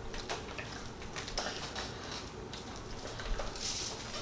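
Quiet room with faint scattered taps and rustles, a little louder about three and a half seconds in.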